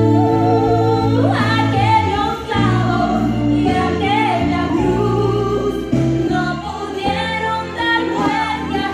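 A Christian worship song playing: a sung melody gliding over steady, held keyboard chords.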